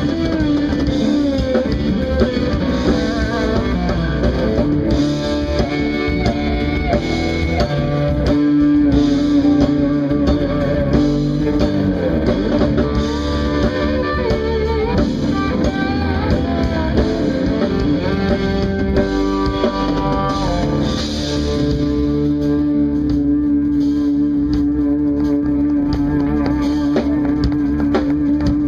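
Live instrumental band music: electric guitar carrying the melody over electric bass and drum kit. The texture thins about 21 seconds in.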